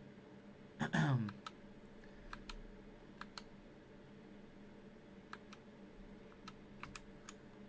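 Keys on a GK61 mechanical keyboard with optical brown switches being pressed one at a time, giving scattered, irregular clicks. A short falling vocal sound comes about a second in.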